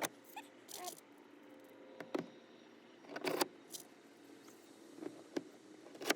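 A hand rivet-nut tool being worked on 1/4-20 rivet nuts: about half a dozen separate metallic clicks and clinks, with a longer clatter about halfway through.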